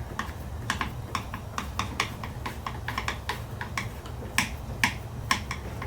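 Torx screwdriver working the door-handle retaining screw loose: a run of sharp, irregular clicks, a few a second, of the tool against metal.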